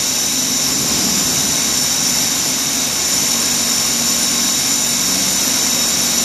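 Wagner PC 830 plaster spraying machine running, with compressed air hissing from its spray gun held in a bucket of water. It makes a steady, loud hiss with a low hum underneath, unchanging throughout.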